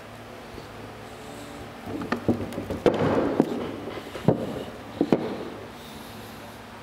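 Steel gear cluster from a LeBlond lathe's quick-change gearbox being pulled out of its cast-iron housing and laid on a wooden workbench: a run of metal clanks and knocks with brief ringing, starting about two seconds in and ending just after five seconds. A low steady hum runs under it.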